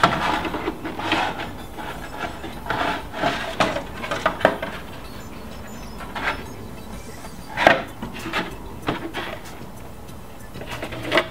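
Hollow rustling, scraping and light knocks of a stiff Lexan RC truck body being handled and turned over in the hands, with one sharper knock about three-quarters of the way through.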